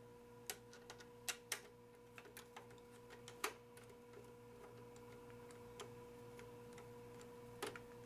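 Scattered light clicks and ticks from a screwdriver backing a screw out of the rear panel of an Alienware X51 computer case. Most of the clicks fall in the first half, the sharpest about three and a half seconds in, and a few come later.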